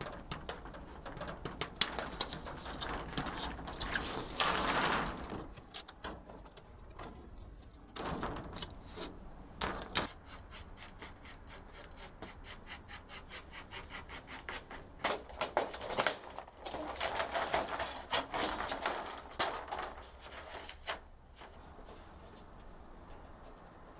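Hand tools working corrugated polycarbonate roofing sheet: the cutter's blade crackles and clicks as it bites through the plastic, with bouts of scraping as a blade is drawn along the sheet. Near the end it turns quieter, to scraping at old caulking.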